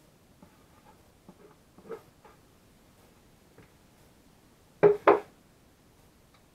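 A few light taps and scrapes of a spatula in a plastic bucket, then two sharp knocks close together about five seconds in as the plastic bucket is set down on a wooden table.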